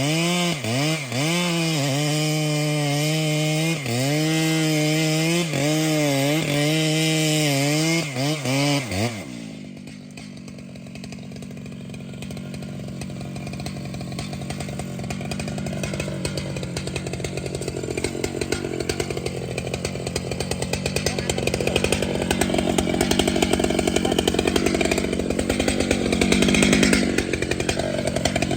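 Large chainsaw running at full throttle and cutting through wood, its revs sagging and recovering again and again under load. About nine seconds in the throttle is released and it drops to a lower, rougher running note that slowly grows louder.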